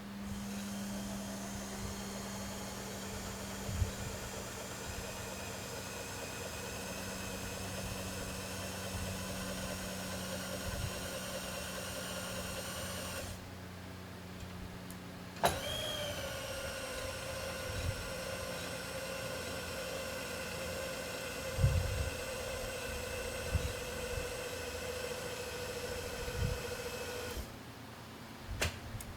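Aftermarket milling-machine table power feed motor running with a steady whine. It stops about thirteen seconds in and starts again two seconds later, its pitch dropping and then settling, and runs until shortly before the end. A few light knocks sound while it runs.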